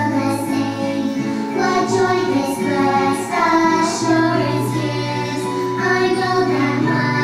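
Voices singing an old song about trusting, over a musical accompaniment with bass notes held for a second or more.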